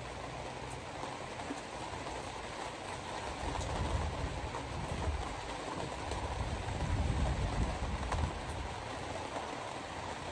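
Hard rain and steady wet-road noise from a moving car, with a low rumble that swells from about three and a half seconds in and fades near the end.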